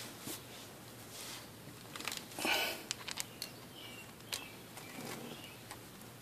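Quiet handling of metal scrap and tools: scattered light clicks and taps, with a short scrape about two and a half seconds in.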